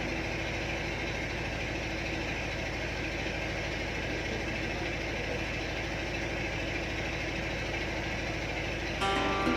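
A tugboat's engine idling steadily, a low even drone. Music comes back in near the end.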